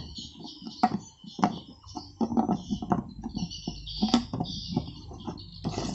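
Grey PVC threaded cap being screwed by hand onto a white PVC pipe filter housing: irregular scraping and clicking of plastic threads.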